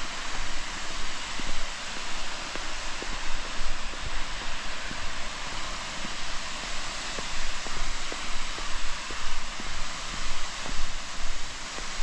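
Steady rush of falling water, with a walker's soft, uneven footsteps and small ticks on the trail throughout.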